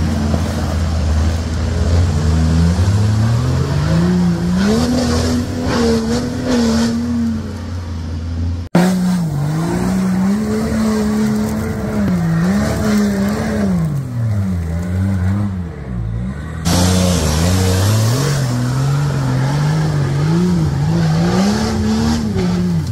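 BMW M57 3.0 straight-six turbodiesel in a Nissan Patrol, running under load through a side-exit exhaust, its revs climbing over a couple of seconds near the start and then rising and falling again and again. The sound breaks off abruptly twice, about nine and seventeen seconds in.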